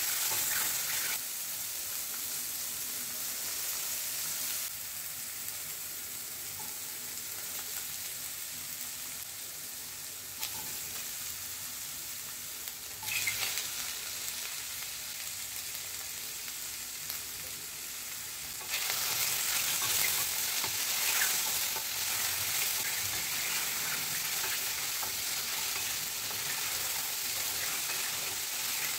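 Mushrooms sizzling in oil in a stainless steel pan while a spatula scrapes and stirs them. About 13 seconds in there is a brief clatter as chopped capsicum and onion drop into the pan. From about 19 seconds the sizzling and stirring are louder again as the vegetables are tossed.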